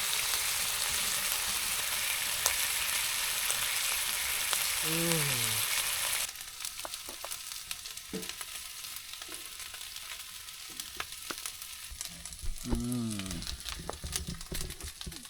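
Steady sizzling of food frying in a pan, cutting off abruptly about six seconds in. A quieter stretch with scattered light clicks follows.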